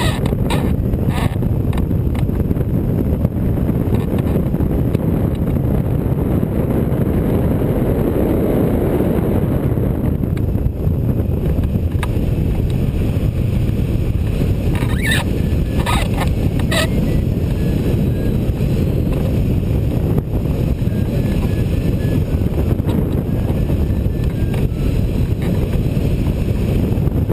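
Steady, loud rush of airflow buffeting the microphone of a camera mounted on a rigid-wing hang glider in flight. A few sharp clicks sound about halfway through.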